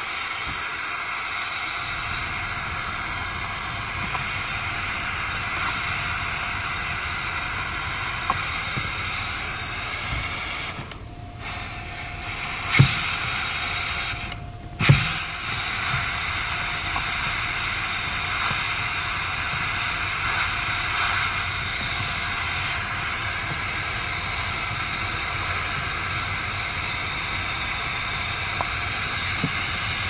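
Steady hiss from the brake booster behind the brake pedal, heard under the dashboard. It is the kind of hiss that can point to a faulty, leaking brake booster. The hiss cuts out briefly twice about halfway through, with two sharp knocks around then.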